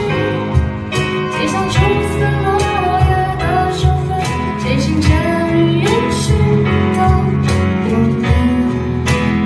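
Live folk-pop band performance: a woman singing over acoustic guitar, violin, keyboard and bass.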